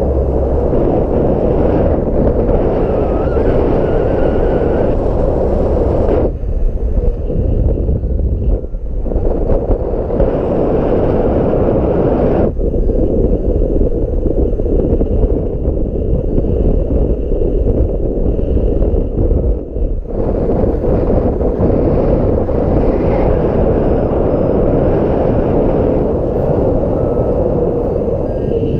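Strong wind buffeting the microphone: a loud, continuous low roar with a few brief lulls.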